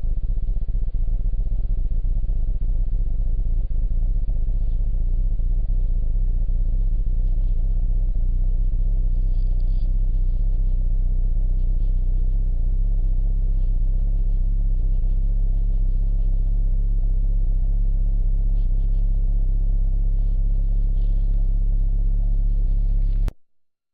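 A steady, loud low engine rumble that cuts off suddenly near the end.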